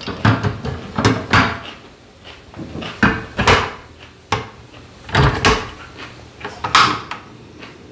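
Metal tongs knocking and scraping on the pan of a portable tabletop gas grill as thin slices of beef are turned: a string of short clatters and scrapes, with a sharp click about four seconds in.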